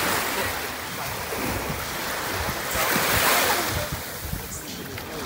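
Shallow sea water washing and splashing at the water's edge, with a wave surging up about three seconds in. Wind buffets the microphone.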